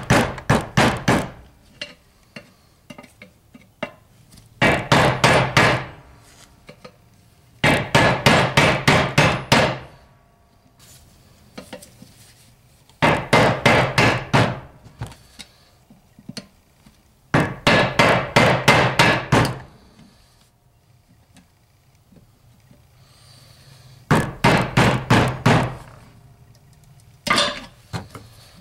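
Quick hammer blows on a tool set against the edge of an old shaft seal in an NP208 transfer case bore, driving the seal out. The blows come in bursts of several strikes a second, each run lasting a second or two, with short pauses between runs.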